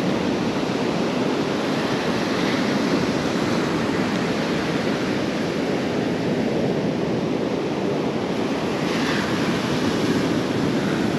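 Steady wash of surf breaking on the shore.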